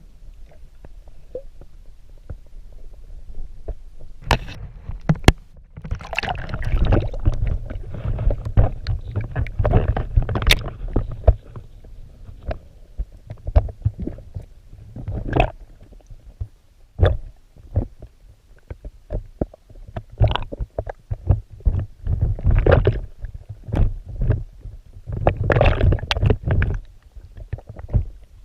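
Water sloshing and splashing close to the microphone as a person swims in a shallow creek, with a low rumble and many irregular knocks and gurgles.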